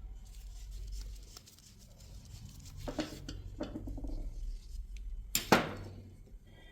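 Faint scratching and light clinks from cleaning the inside of a starter motor's bushing by hand, with one sharp clack about five and a half seconds in.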